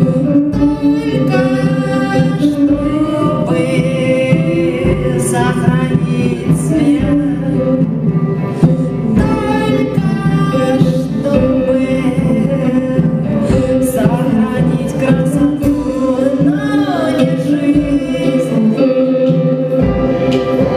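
Live band playing a song, with singing carried over the instruments.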